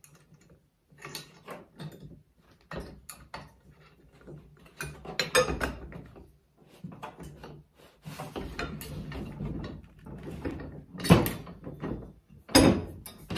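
Steel linkage arms, a wear plate and a bolt of an ATV implement lift being handled and fitted together: irregular clicks and knocks of metal on metal as the bolt is pushed through, with a scraping stretch about eight seconds in and a louder knock about eleven seconds in.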